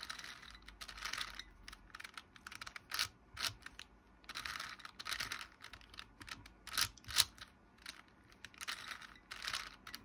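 A 4x4 Rubik's cube's plastic layers being turned by hand in a quick, irregular run of moves for an edge-parity algorithm: scraping slides of the layers punctuated by sharp clicks.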